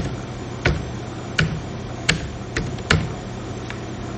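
Computer keyboard keys pressed one at a time, slow and uneven: about seven separate clicks, with a steady low hum underneath.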